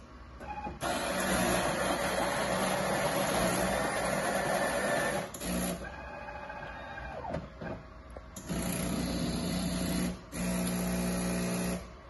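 Nescafé Alegria coffee machine running while it prepares a drink, a steady mechanical whirr with a low hum. It runs for about four seconds, stops, then starts again in two shorter runs with a brief gap between them.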